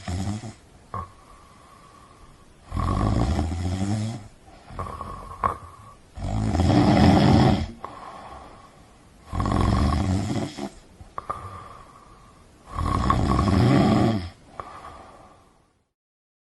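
A person snoring: four loud snores about three seconds apart, with quieter breathing between them.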